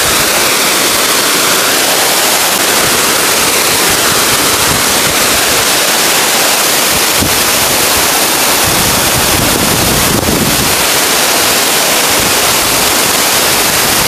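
Large waterfall pouring into its plunge pool: a loud, steady rush of falling water.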